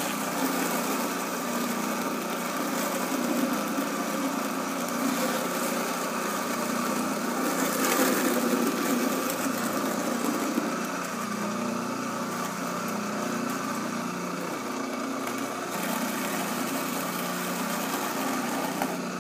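Homemade bucket mixer running: a 3/4 hp electric motor turns a 5-gallon bucket through a gear reduction unit with a steady hum. Dry sand churns and scrapes against the shovel blade held in the spinning bucket.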